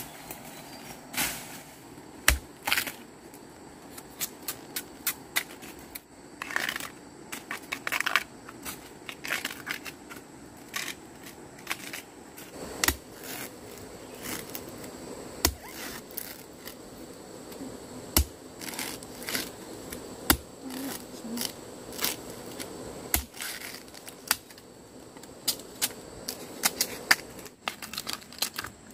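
Footsteps crunching on dry bamboo leaves and twigs, then a knife chopping bamboo shoots at their base: irregular sharp cracks and crackles, some single strong strikes.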